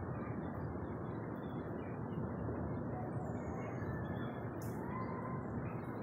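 Steady outdoor city ambience: a constant hum of distant traffic, with a faint short rising tone about five seconds in.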